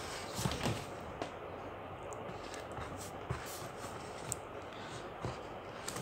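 Faint handling noises from unboxing a small package: a few light clicks and rustles over a steady background hiss.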